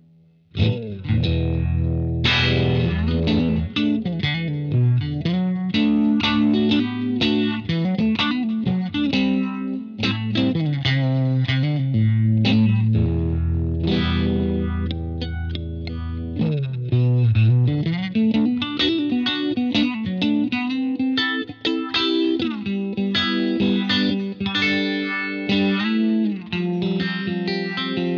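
Electric guitar played through an EarthQuaker Devices The Depths analog optical vibe pedal: improvised picked notes and chords with a swirling, warbling Uni-Vibe effect. The playing starts just after a brief gap at the very beginning.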